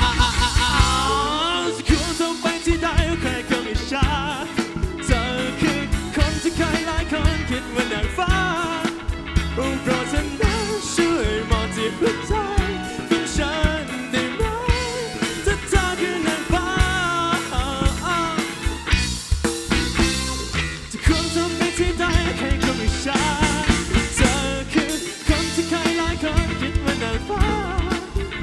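Live rock band playing: a male lead singer sings into a microphone over electric guitars and a steady drum beat.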